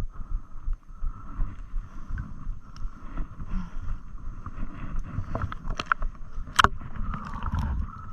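Low rumbling water and wind noise, with a cluster of sharp clicks and knocks about five to seven seconds in.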